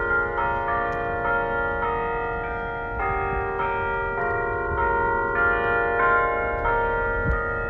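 Church bells ringing a tune, one note struck about every half second or so, each note ringing on under the next.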